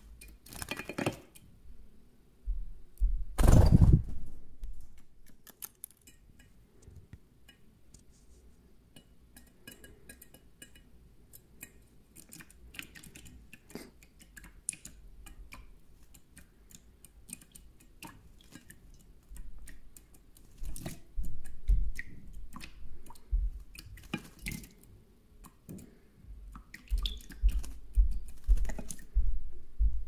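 European goldfinch bathing in a shallow stainless steel dish, splashing water in short bursts. The loudest splashing comes a few seconds in, with more bunches of splashes near the end and small ticks and clicks against the metal dish in between.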